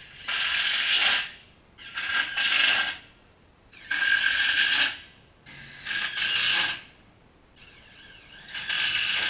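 Power drill run in five bursts of about a second each, fixing corrugated iron cladding to a timber frame.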